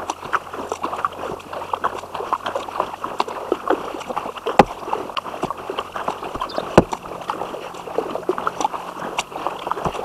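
Kayak paddling: paddle strokes splashing and water dripping, with many short, irregular clicks and knocks. The sharpest come about halfway through and again a couple of seconds later.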